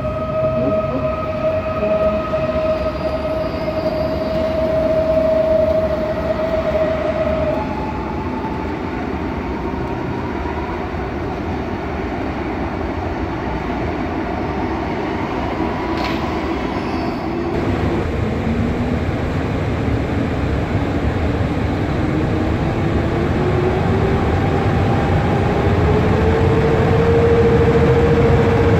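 Electric trains in an underground station: a Pesa Dart electric multiple unit running along the platform with a steady high whine that stops about a quarter of the way through, then an EP09 electric locomotive hauling passenger coaches, its whine rising in pitch and levelling off near the end over continuous rolling noise.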